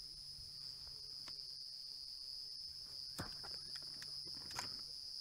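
Crickets trilling steadily in one continuous high-pitched note. A couple of soft knocks come about three seconds in and again a little over a second later.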